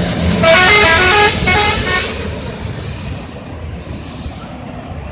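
A bus's multi-tone 'telolet' musical horn plays a quick tune of stepped notes in two loud bursts, the second shorter. The low rumble of the passing vehicle trails off after them.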